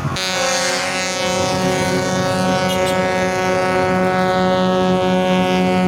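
A bus's ship-style air horn (klakson kapal laut) sounding one long, steady, deep blast that cuts in abruptly.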